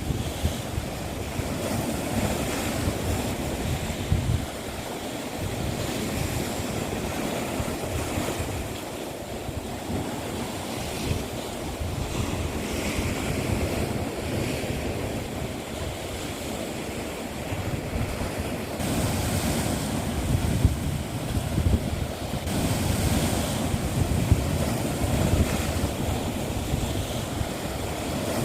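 Sea waves washing onto the shore, the surf swelling and easing, with wind rumbling on the microphone.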